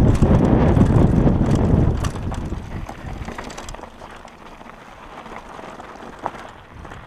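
Downhill mountain bike riding fast over a loose gravel and dirt trail: wind buffets the camera microphone and the tyres crunch over stones, loud for the first two seconds and then quieter. Scattered small rattles and clicks run through it, with one sharp knock about six seconds in.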